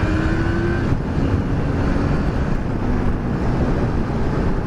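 Honda CBR600F's inline-four engine accelerating, its pitch rising for about the first second before breaking off, then a steady rush of wind and road noise over the engine while riding.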